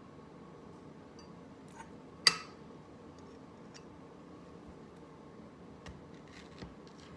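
Small hard objects being handled: one sharp clink about two seconds in, then a few light taps and clicks.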